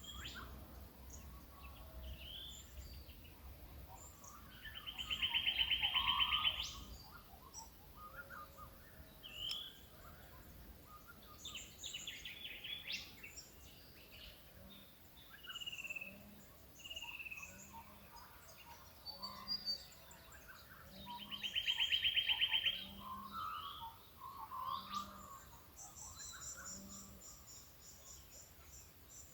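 Early-morning chorus of Australian bush birds: assorted chirps, short descending whistles and twitters, with a loud rapid trill twice, about five seconds in and again past the middle. In the second half a series of low, evenly spaced hoots sounds about once a second.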